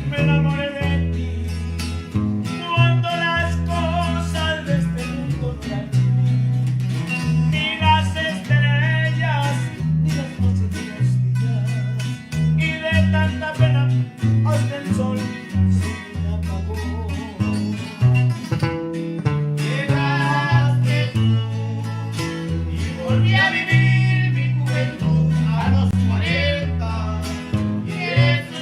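Norteña band playing live, with plucked strings over a bouncing bass line.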